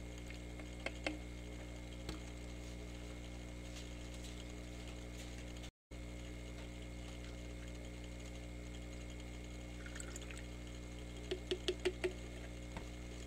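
Liquid poured from a plastic measuring jug into a plastic bottle, with a few short glugs and ticks near the end, over a steady low hum.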